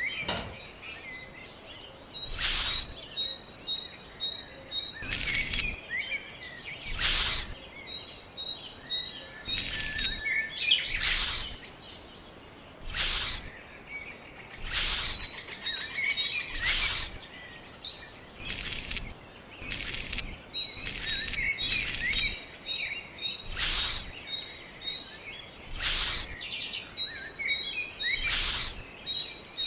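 Small birds chirping in quick runs of short high notes, with a louder short noisy stroke, a scrape or knock, every one to two seconds.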